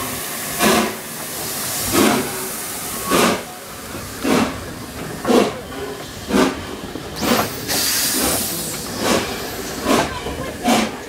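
Steam locomotive 60163 Tornado, a three-cylinder LNER Peppercorn A1 Pacific, starting its train away from a stand: about ten heavy exhaust chuffs, roughly one a second and gradually quickening, with steam hissing steadily between them.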